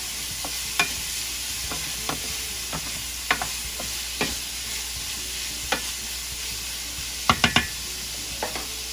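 Broccoli, carrots and cauliflower with chicken sizzling steadily in oil in a stainless steel skillet while being stirred with a wooden spoon, which knocks against the pan now and then, three times in quick succession near the end.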